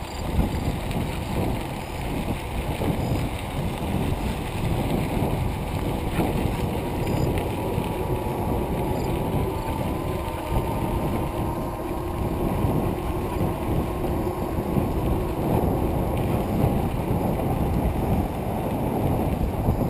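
Wind rushing over the microphone and tyre rumble from a bicycle rolling along a trail at speed, a steady low noise with no breaks.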